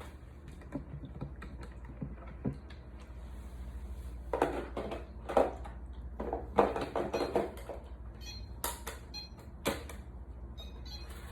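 Irregular clicks and taps of small plastic parts being handled, with a cluster of louder clatters in the middle and two sharp clicks near the end.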